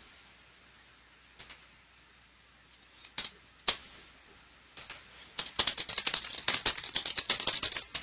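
Computer keyboard typing: a few separate clicks in the first half, then a fast run of keystrokes from about five seconds in as a folder name is typed.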